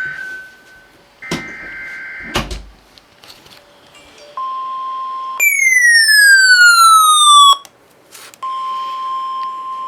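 NOAA Weather Radio emergency alert: two bursts of the SAME digital header's two-pitched data screech, each about a second long, then the steady 1050 Hz weather alert tone. The alert tone is broken by a very loud falling tone sweep with overtones that lasts about two seconds and cuts off abruptly, and the alert tone then returns.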